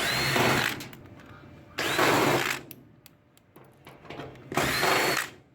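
Cordless drill/driver backing out screws in three short bursts, each under a second and each starting with a brief rising whine as the motor spins up.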